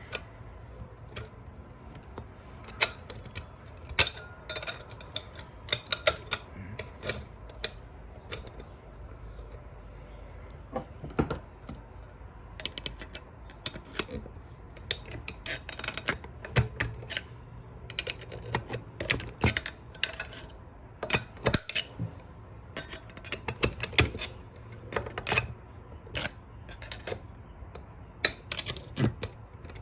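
Irregular sharp metallic clicks and scrapes of a retaining snap ring being worked around into its groove over the clutch pack's end plate in a 4L60E automatic transmission.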